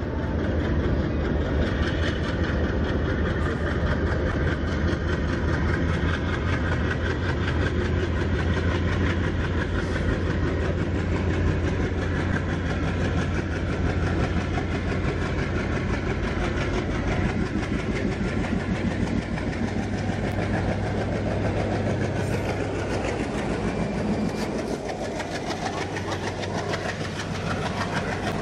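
Diesel locomotive hauling a passenger train, its engine running loud and steady under power as it approaches. Near the end the engine sound eases and the coaches rattle past with wheel clatter.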